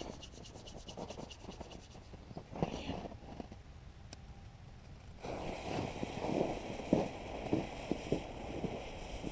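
A lighter being struck at a black powder mortar's fuse, a few scattered clicks, until about five seconds in a steady hiss starts as the fuse catches and burns. Crunching footsteps in snow come over the hiss.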